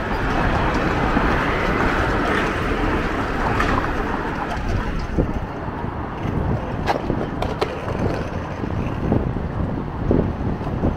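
Busy city street sound: a steady rush of traffic with voices of passers-by mixed in. In the second half come a handful of short, sharp clicks and knocks.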